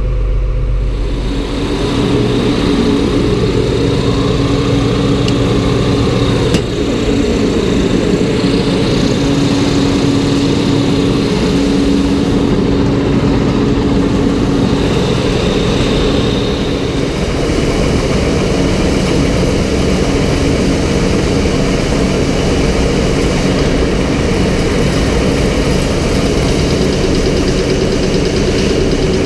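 Farm tractor engine running steadily at working speed, driving a feed grinder. The drone stays loud and even throughout, with a slight change in its low rumble about a second and a half in.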